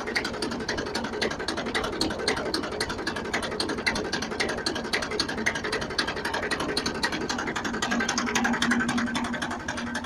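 Homemade potato harvester's roller-chain drive and welded steel-rod conveyor running empty off the tractor's PTO: a fast, steady metallic clatter of chain links over the sprockets and rattling rods. A steady low tone, likely from the tractor running, comes in near the end.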